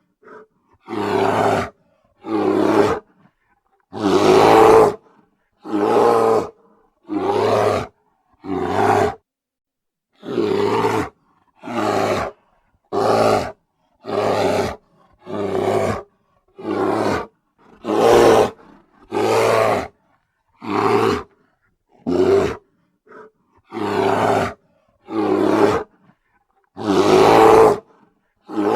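A bear roaring again and again: about twenty short, loud roars with brief silences between them, roughly one every second or so, a few of them longer and louder.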